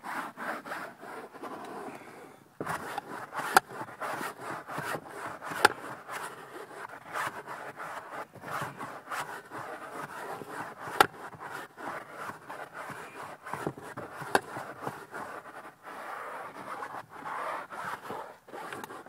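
Steady rubbing and scraping on cloth truck-seat upholstery, as the seat is worked over by hand, with a few sharp clicks.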